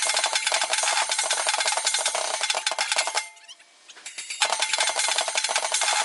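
Drum kit with stainless steel shells and cymbals being played fast, a dense clatter of rapid metallic hits with little deep bass. It stops for about a second a little past halfway, then starts again.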